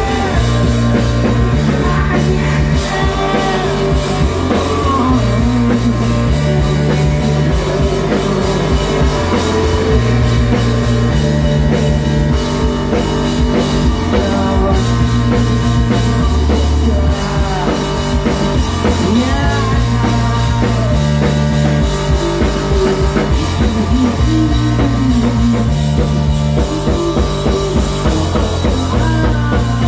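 Live rock band playing loudly: drum kit, guitar and keyboard over a bass line that steps to a new note about every second.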